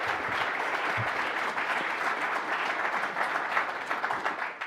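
Audience applauding, a steady dense clapping of many hands.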